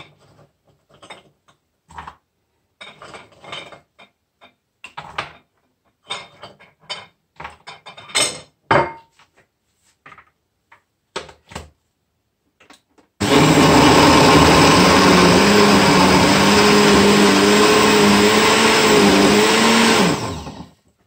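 Scattered light knocks and taps as fruit and utensils are handled on the counter. About two-thirds of the way through, a countertop blender switches on and runs loud and steady for about seven seconds, blending fruit and milk into a smoothie. Near the end it is switched off and its motor winds down.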